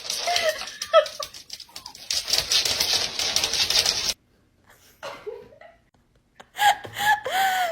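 A cat meowing in short calls over rustling and tapping noise, with louder, longer meows near the end.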